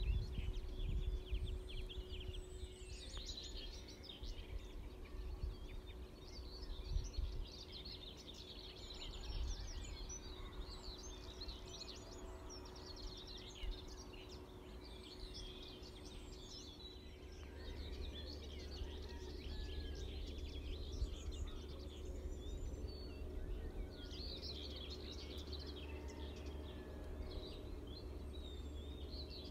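Dawn chorus: many songbirds singing at once in overlapping chirps and trills, over a faint steady hum. A low rumble grows from about halfway through.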